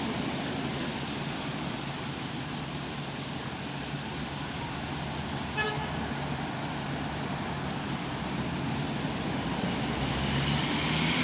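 City traffic in the rain: a steady hiss of rain and car tyres on wet road, with a brief car-horn toot about halfway through. Near the end a car swishes past on the wet road.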